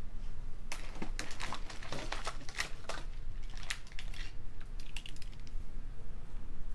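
Quick light clicks and rustles of fingers handling fine beading wire and a strand of beads, a cluster of small ticks during the first four or so seconds that then dies down.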